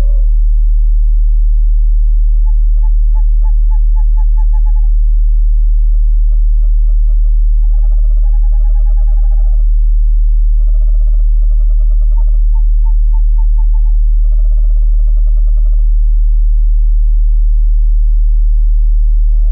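Owl calls: rapid trilled hoots in several bursts of one to two seconds each, over a loud steady low tone from a binaural/isochronic meditation track. A thin, steady high tone comes in near the end.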